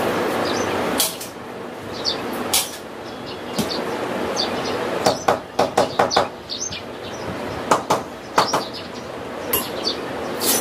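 Sharp clicks and knocks of the fittings as a roller mosquito net is fixed to a window frame by hand, several in quick succession around the middle and again later. A steady noise stops about a second in.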